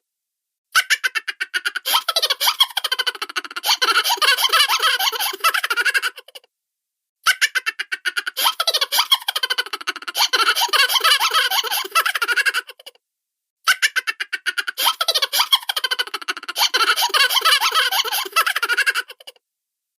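Cartoon laughter sound effect: a high-pitched, rapid giggling chuckle, played three times over with short silent gaps between.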